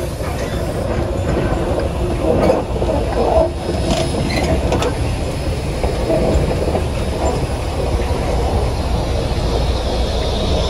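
Train running along the track: a steady, loud rumble, with a few clanks between about two and five seconds in.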